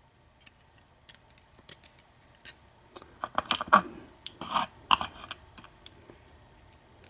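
Small metallic clicks and clinks of a pick or tweezers and tiny lock pins and springs being handled while the driver pins are taken out of an American 1305 padlock's cylinder. A few scattered ticks come first, then a busier run of clicks and scrapes in the middle.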